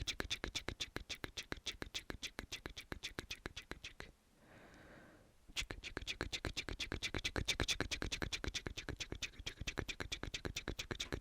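Rapid close-mic ASMR mouth clicks, a whispered "chik-chik" tongue-and-lip sound repeated about seven times a second. About four seconds in they break off for a moment with a soft breath, then resume.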